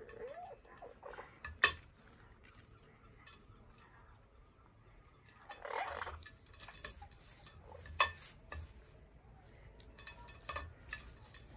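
Orange-winged Amazon parrot bathing in a bowl of water: scattered small splashes with sharp clicks and knocks against the bowl, the loudest a little under two seconds in and about eight seconds in, and a short louder burst of noise near the middle.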